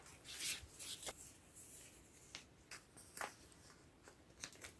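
Faint rustling and a few light taps and scrapes of sleeved photocards being handled and slid into the plastic pockets of a binder page.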